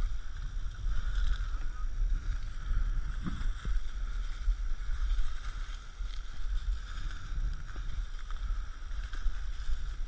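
Dry tall grass rustling and swishing against a body-worn camera as a person walks through it, over a steady low rumble of wind and handling noise on the microphone.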